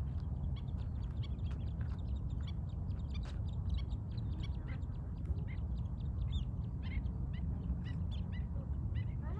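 A flock of birds calling, with many short, rapid chirps overlapping throughout, over a steady low rumble.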